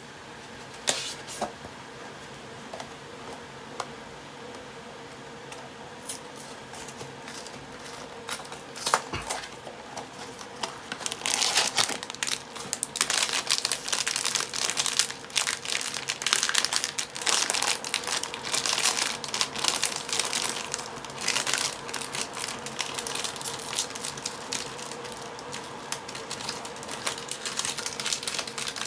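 A few light clicks and taps as a small cardboard blind box is handled and opened, then from about eleven seconds in a foil wrapper bag crinkling and crumpling steadily as it is handled and opened.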